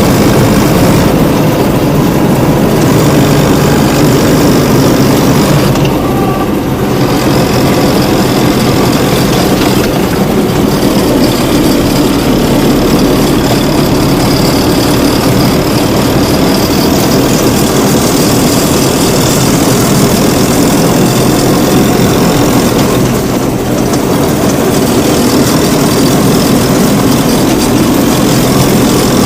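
Homemade minitractor's engine running steadily while driving, loud and close. The engine eases off briefly twice.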